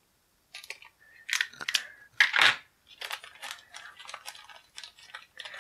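A small clear plastic bag being cut open with a utility knife and handled: a few sharp clicks and rustles about one to two and a half seconds in, then lighter, busier crinkling of the plastic.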